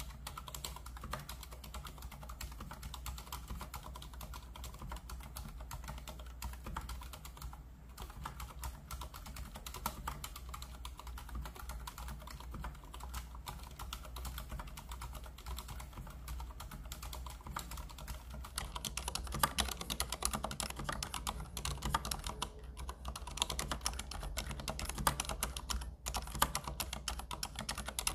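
Typing on a Thinkway Dugard Toche F RGB mechanical keyboard with Cherry MX Silent Red (low-noise red) switches: a quick run of keystrokes, louder and busier from about two-thirds of the way through.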